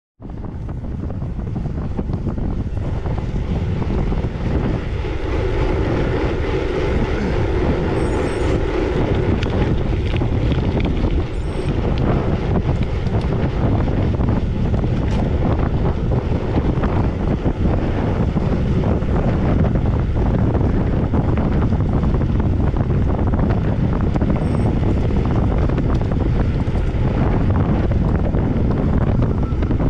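Wind buffeting the microphone of a rider's camera while cycling: a loud, steady rush of noise, heaviest in the low end.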